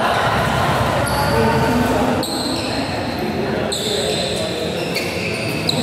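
Rubber-soled court shoes squeaking on the synthetic badminton mat several times, each a high, sudden squeal, over a steady wash of indistinct voices in a large hall.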